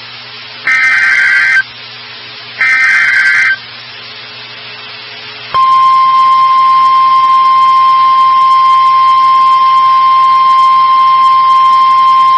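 NOAA Weather Radio alert signal. Two short warbling SAME data bursts, a second apart, end the three-burst header. After a two-second pause, the steady single-pitch 1050 Hz warning alarm tone starts about five and a half seconds in and holds.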